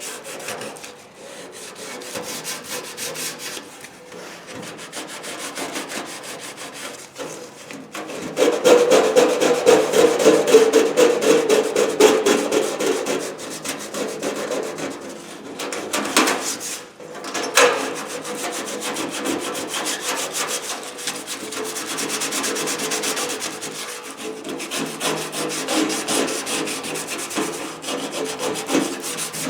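Sandpaper rubbed back and forth by hand over the steel of an old Craftsman toolbox, a steady scratchy rasping that grows louder for a few seconds about a third of the way in.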